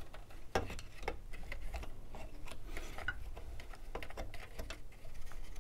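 Faint, irregular small clicks and taps of hands working on a brass backflow preventer assembly, opening it up to get at the number 1 check valve.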